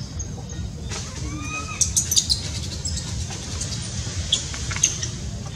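Outdoor ambience with a steady low rumble, a single short arched squeak about a second and a half in, and scattered sharp high ticks around two seconds in and again near the end.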